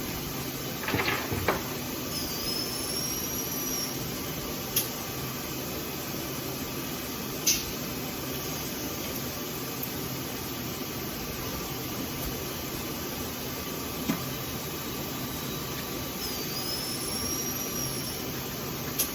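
Bridgeport milling machine running with a steady hum and a faint whine, not yet cutting. Sharp clicks come now and then, and twice a short high squeal dips and then rises.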